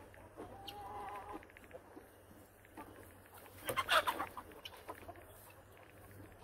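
Chickens clucking and calling: a drawn-out call about half a second in, and a louder, noisier call about four seconds in.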